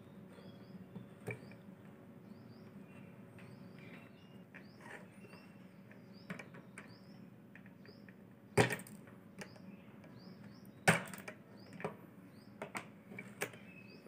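A circuit board and tools being handled on a wooden table: small clicks and two sharp knocks, about eight and a half and eleven seconds in, as the board is turned over and set down. Faint, quick high chirps repeat in the background throughout.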